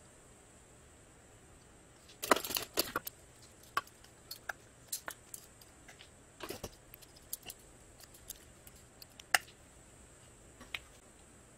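Small metal tools and a clamp handled on a countertop during knife handle assembly: scattered clicks and clinks, with a cluster of clatter about two seconds in, another just past the middle, and one sharp click about three quarters through.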